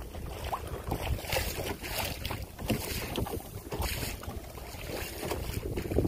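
Wind buffeting the microphone on a kayak on open water, an uneven low rumble with irregular splashy rushes.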